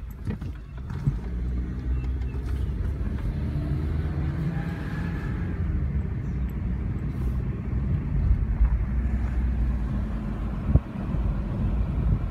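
Car driving along a road: steady engine and tyre rumble, with a single thump near the end.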